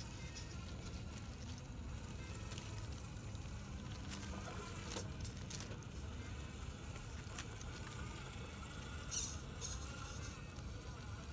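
RC scale truck crawling over loose gravel in low gear: a faint whine from its 550 35-turn motor and geartrain, with scattered crunches and clicks of stones under the tyres and a sharper clatter about nine seconds in.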